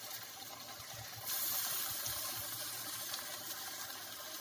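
Steady hiss of vegetables cooking in a hot steel pot as chopped tomatoes are tipped in from a steel plate. It grows louder about a second in and then slowly fades, with a few soft low thumps.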